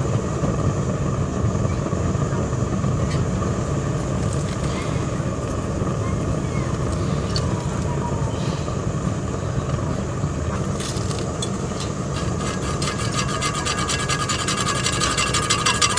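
Pellet stove running with a steady low rumble and hum. Near the end a fast, even ticking rattle comes in from a heat-powered fan spinning on the stove top, which is unusually noisy.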